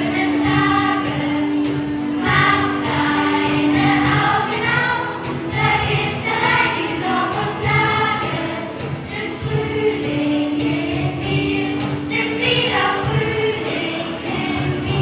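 Children's choir singing a song in German, with a long steady note held underneath during the first four seconds and again from about ten seconds in.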